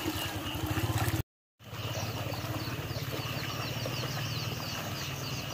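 A small engine running steadily with an even low pulse, while small birds chirp repeatedly over it. The sound cuts out completely for a moment about a second in.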